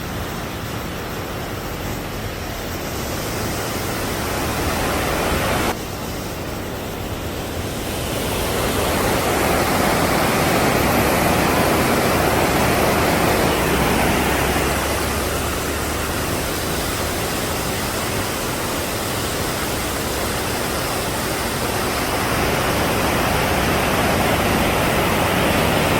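Waterfall: a steady rush of falling water, dense and even across the range. The level dips suddenly about six seconds in, then grows louder again a couple of seconds later.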